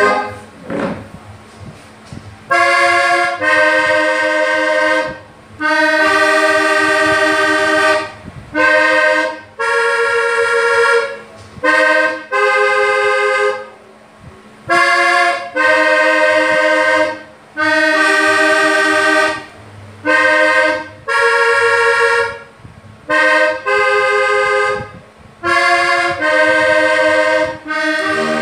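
Accordion playing a vallenato tune slowly, in held chords of about a second each, separated by short breaks.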